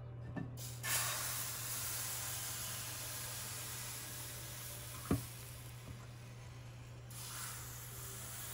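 Pandan crepe batter sizzling as it hits a hot, oiled nonstick frying pan. The hiss starts about a second in and slowly dies down, with one knock about five seconds in, then swells again about seven seconds in as more batter spreads across the pan.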